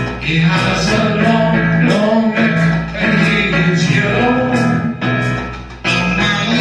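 A song playing: a singing voice over instrumental accompaniment with a steady bass.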